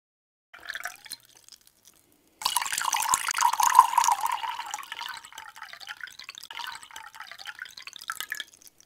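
Liquid dripping and then pouring into a container: a few drips, then a steady pour starting about two and a half seconds in, loudest for a second or two and tapering off, with one last drip near the end.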